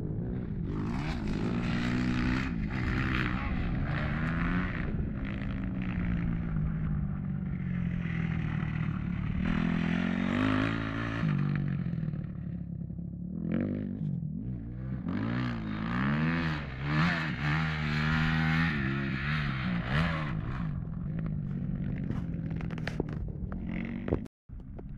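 Motocross bike's engine revving as it rides the dirt track, its pitch climbing and dropping again and again as the throttle opens and closes. The sound cuts out briefly near the end.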